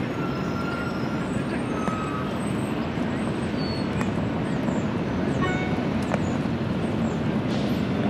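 Steady low rumble of road traffic, with a few faint, short, high bird chirps scattered through.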